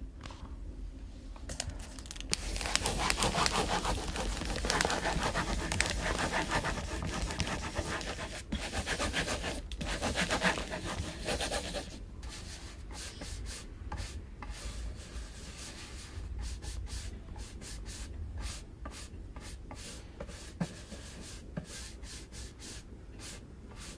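Baren rubbing over paper laid on an inked woodblock, pressing the paper onto the block to print a colour: a dry, scratchy rubbing in strokes, loudest through the first half, then many short, sharp strokes.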